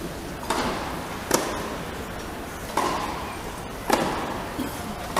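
Tennis ball struck by rackets in a rally on a grass court, beginning with a serve. There are five sharp hits, about one every second and a half.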